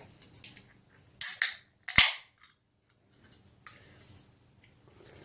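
A drink container being opened: a short rustle just over a second in, then a single sharp pop at about two seconds with a brief hiss after it, like a can's pull-tab breaking the seal. Faint handling sounds follow.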